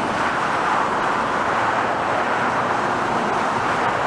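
Steady jet engine noise from an airliner, an even rushing sound with no change in pitch.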